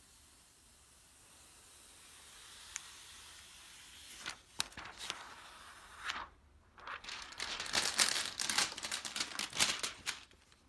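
Protective plastic film being peeled off a graphics tablet's surface: a faint hiss that slowly grows, then dense crackling and crinkling of the plastic from about four seconds in until just before the end.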